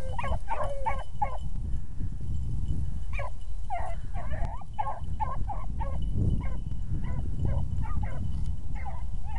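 A pack of rabbit hounds baying and yelping in short, rapid calls in bursts, giving tongue as they run a freshly jumped rabbit's scent. A steady low rumbling noise runs underneath.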